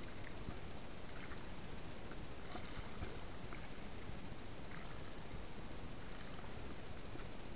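Steady rushing noise of river water, with a few faint splashes or knocks.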